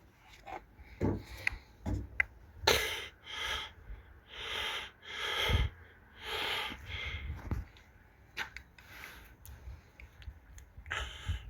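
A person's breathy puffs and sniffs, a series of about a dozen short exhalations with a few small clicks between them.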